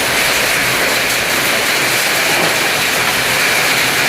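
Heavy rain pouring down steadily in a rainstorm, an even, loud hiss.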